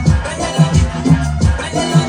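Music with a steady, bass-heavy beat.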